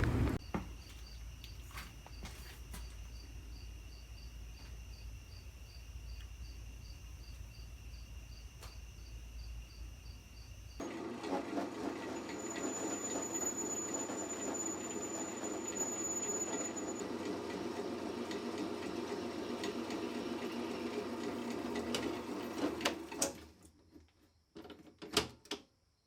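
Crickets chirping in an even, high pulsing rhythm of about two chirps a second. After an abrupt cut about eleven seconds in, a louder steady whirring noise takes over for about twelve seconds, then it drops to near silence.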